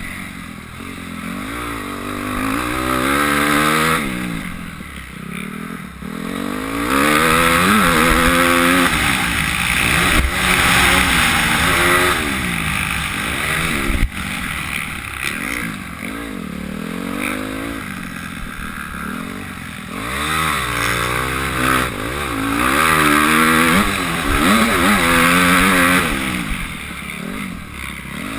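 Motocross dirt bike engine ridden hard, its pitch climbing again and again as it revs up through the gears, then dropping away as the throttle is shut for corners, several times over.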